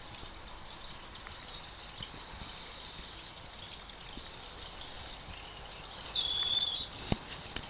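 Outdoor background noise with a few short, high bird chirps, then a brief high whistle and a sharp click near the end.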